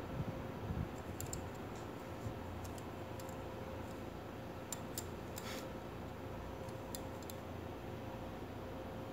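Scattered light clicks and a short scrape from a small Leatherman Micra keychain multitool being handled, with a few soft knocks in the first second. A faint steady hum runs underneath.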